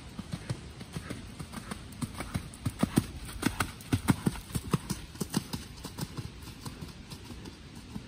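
Hoofbeats of a Drum Horse on a soft dirt arena: a steady run of dull strikes that grows louder as the horse passes close about halfway through, then fades as it moves away.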